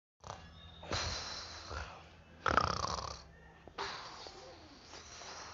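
A man snoring: three long, rasping snores about a second and a half apart.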